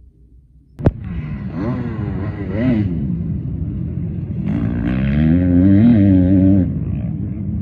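A sharp click, then an engine running, its revs rising and falling.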